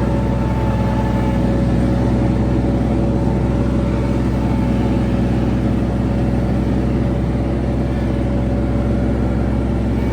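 Kubota G231 ride-on mower running steadily at a constant engine speed, an even drone with no change in pitch.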